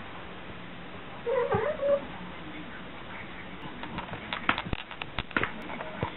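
A cat gives one short meow about a second in. In the last two seconds comes a quick run of sharp clicks or taps.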